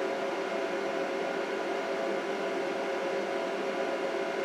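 Steady whirring hum of an Anycubic Photon resin 3D printer's cooling fan, running as the printer boots up.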